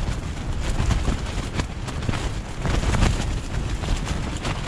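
Strong wind buffeting the microphone: a steady low rumble with faint scattered rustles and clicks over it.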